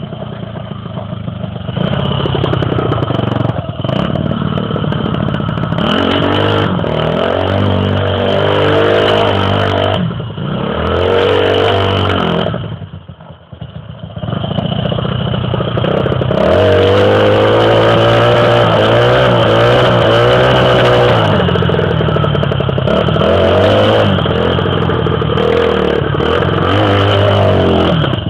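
Chinese 150cc dirt bike's single-cylinder engine revving hard while its rear wheel spins in snow. The revs climb and fall again and again, drop almost away about thirteen seconds in, then are held high and wavering.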